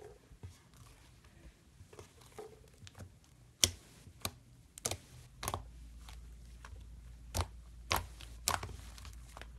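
Foam slime (floam) being pressed and poked, giving a run of sharp crunchy pops and crackles, with about seven louder ones from a few seconds in and softer squishing between.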